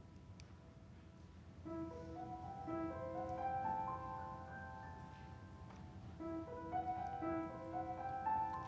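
Piano playing a soft introduction: slow broken chords rising note by note, the figure coming in about a second and a half in and starting over about halfway through.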